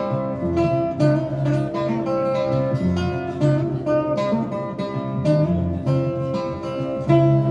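Acoustic guitar strummed and picked in an instrumental break between sung verses of a live folk song.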